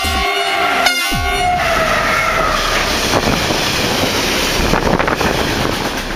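Makrofon horn of a DB class 152 electric locomotive sounding about a second in, its tone dropping in pitch as the locomotive passes close by. Then the steady rumble and clatter of its freight wagons rolling past.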